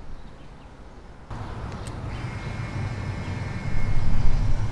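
A vehicle passing, a steady low rumble that grows louder toward the end.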